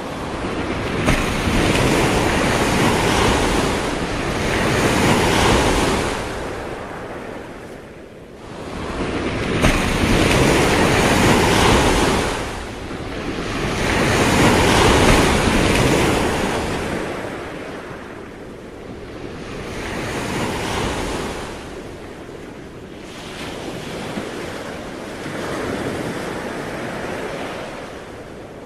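Surf: waves breaking and washing back, the rush swelling and fading about every five seconds, loudest around the middle.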